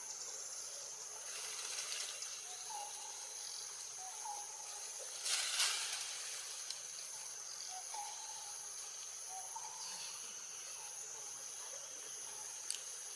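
Steady high-pitched insect chorus with a faster pulsing layer above it, and faint short chirps scattered through. A brief rustle about five seconds in is the loudest sound, with a single tick near the end.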